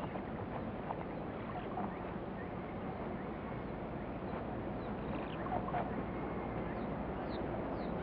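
Steady background noise at moderate level, with a few faint short high chirps in the last seconds.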